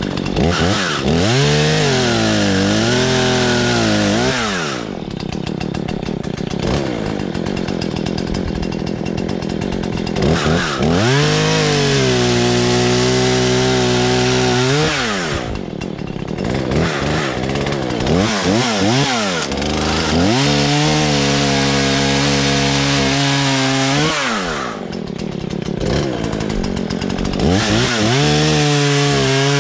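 Husqvarna 120 Mark III two-stroke chainsaw opened up to full throttle four times, each time holding a high steady whine for a few seconds, the pitch sagging slightly in the first, before dropping back to idle.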